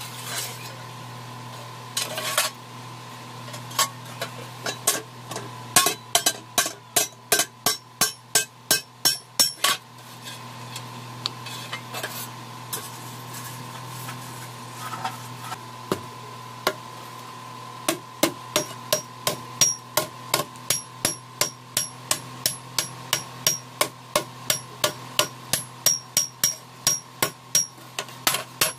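Hand hammer striking a sheet-iron plate on an anvil block, in runs of sharp metallic blows at about two to three a second. There is a break of several seconds in the middle with only a few scattered strikes. A steady hum runs underneath.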